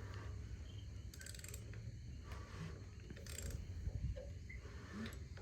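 A freshly built engine being turned over slowly by hand with a wrench, making a few short mechanical rattles about a second apart over a low hum, while something inside is touching: a valve is hitting a piston.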